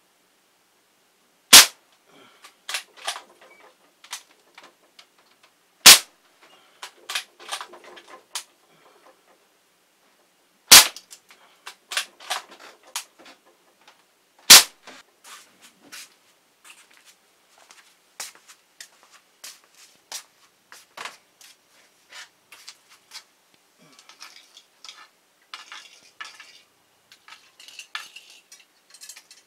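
Four sharp shots from a .22 Hammerli Pneuma air rifle, several seconds apart, each pellet striking die-cast toy cars followed by a light rattle of small metal bits. Near the end, scattered clinks of metal pieces on the concrete floor as the cars are handled.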